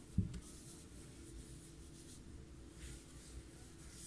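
A brief low thump, then faint soft rubbing strokes of a cotton pad being wiped over the face to take off makeup.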